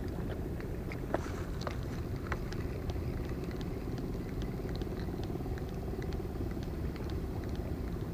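Spinning reel being cranked to retrieve a crankbait: a faint steady whir with scattered light clicks, over a steady low rumble, with one sharper click about a second in.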